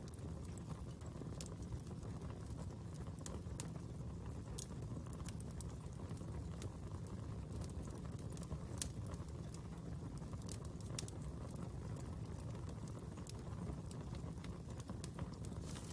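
Fire crackling, with irregular sharp pops and snaps over a steady low rush.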